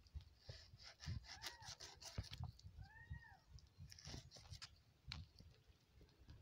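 Light clicks and taps of a knife cutting raw pork by hand, with two faint, short cat meows, rising then falling in pitch, about one and a half and three seconds in.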